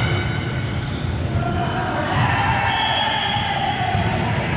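Indoor volleyball gym ambience: steady hall noise with a murmur of distant voices, one drawn-out call or squeak rising and falling through the middle, no clear ball hit.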